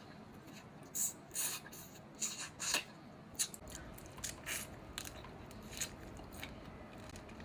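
Seafood boil being handled and peeled by hand: irregular short crackles, clicks and wet squishes, busiest in the first three seconds.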